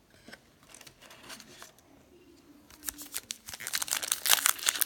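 Wrapper of a 2018 Topps Allen & Ginter trading card pack being torn open and crinkled by hand: faint at first, then crackling loudly from about three seconds in.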